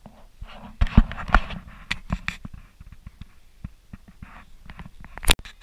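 Dry fallen leaves rustling and crunching underfoot, with footsteps and short knocks and scrapes, several sharper thumps about a second in and one near the end.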